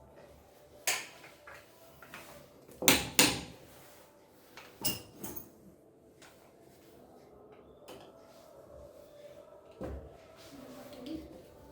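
Handling noise: a series of separate knocks and clatters of hard objects being moved and set down, the loudest a double knock about three seconds in, with smaller ones near five and ten seconds.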